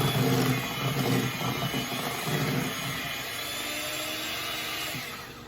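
Electric hand mixer running steadily, beating a glaze of confectioner's sugar, butter and milk; it stops near the end.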